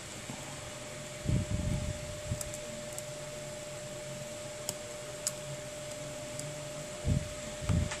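Steady room hum and hiss with a faint constant whine, typical of a fan running. Low dull bumps come about a second in and again near the end, and a few faint light clicks fall in between.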